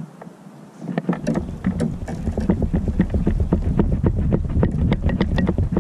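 Fishing reel being cranked fast while fighting a hooked bass from a kayak: a dense run of quick ticks over a low rumble, starting about a second in.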